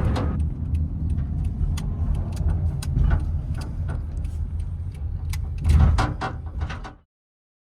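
Car on the move: a steady low rumble of engine and road noise with light rattles and clicks over it, swelling louder just before the sound cuts off suddenly about seven seconds in.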